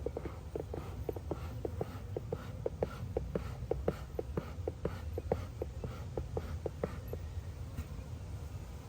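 Excess beeswax being scraped off beehive parts in quick repeated scraping strokes, about three or four a second, stopping about seven seconds in.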